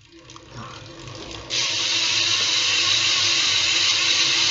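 BMX rear hub freewheeling loudly: faint ratchet clicking at first, then about a second and a half in a sudden loud, steady whirring buzz as the rear wheel spins.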